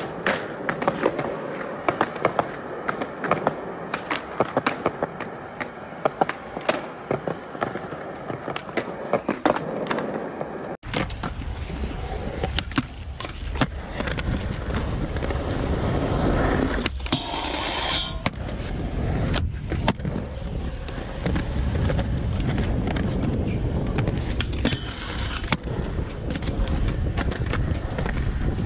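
Skateboard on concrete: wheels rolling, with many sharp clacks of the board popping and landing. About eleven seconds in, the sound cuts to a steadier, deeper rumble of wheels rolling on smooth skatepark concrete, with a few clacks.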